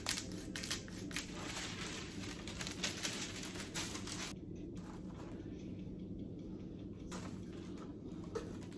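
A hand pepper grinder twisted for about a second, giving a dry crackling grind. Then a sheet of baking paper rustles as it is handled and laid over a sandwich press, with a last short rustle near the end. A faint steady hum runs underneath.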